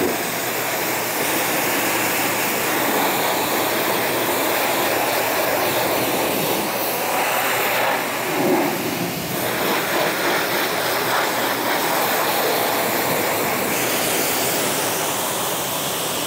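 Pressure washer jet spraying water in a steady hiss, first over an engine bay, then over a car roof near the end.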